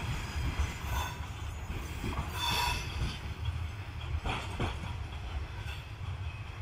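Freight wagons rolling away on the rails: a steady low rumble with wheels clacking over rail joints now and then and a brief wheel squeal about two and a half seconds in, fading slightly as the tail of the train recedes.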